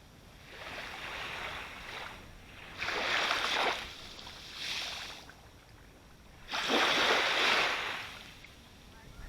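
Sea waves breaking and washing up close by, in four hissing surges of surf that swell and fade, the loudest about two-thirds of the way in.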